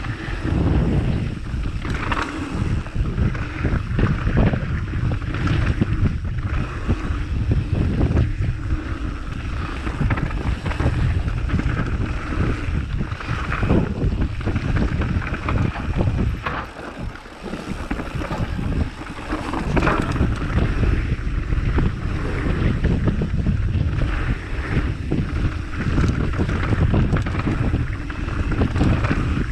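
Wind buffeting the microphone: a loud, uneven rumbling that rises and falls throughout, with a brief lull about two thirds of the way in.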